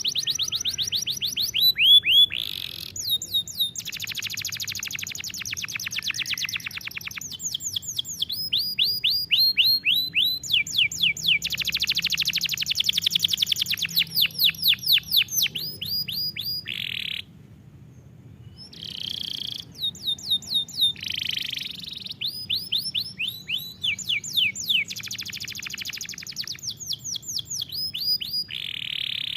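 Domestic canary singing: long song of rapid trills and fast repeated downward-sweeping notes, phrase after phrase, with one brief pause about two-thirds of the way through.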